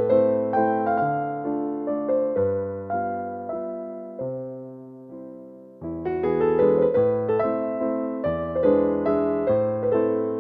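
Background music: a gentle electric piano melody with bass notes. It fades down about four seconds in and comes back fuller about two seconds later.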